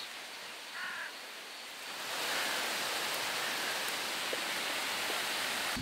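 A cauldron of fish soup steaming over a wood fire. From about two seconds in there is a steady, even hiss of heating water and fire. Before that, only a quieter background with a brief high chirp.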